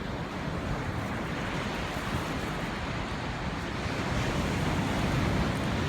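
Steady rushing noise of ocean surf, with wind buffeting the microphone; it swells slightly about halfway through.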